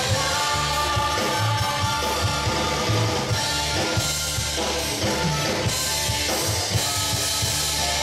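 Live band playing a rock song at a steady loud level, with drum kit and electric guitar.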